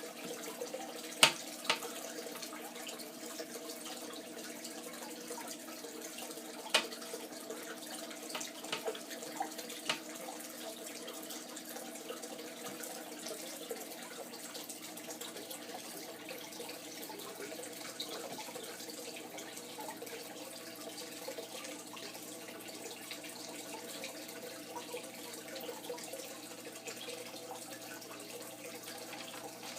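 Steady running water in a turtle tank, with a constant low hum underneath. There are several sharp clicks or knocks in the first ten seconds.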